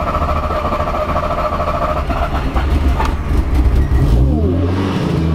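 A car's starter cranks the turbocharged engine on a low battery (11.2 volts), with a steady whine over a low rumble. About four seconds in the engine catches and rises to a steady idle.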